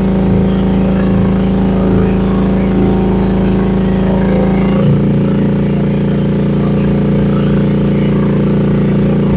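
Rippa R10 one-ton mini excavator's gasoline engine running at working throttle while its hydraulics move the machine; the engine's note shifts about five seconds in as the load changes.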